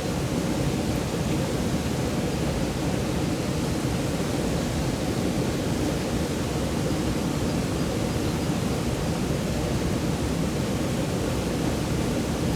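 Mountain stream rushing, a steady even murmur of running water.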